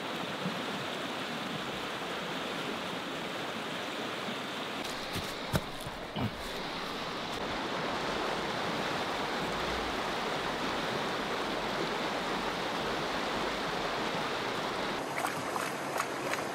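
Shallow stream running steadily over stones, with a few short knocks about five to six seconds in. Near the end come light clicks and splashing as a gold pan is dipped in the water.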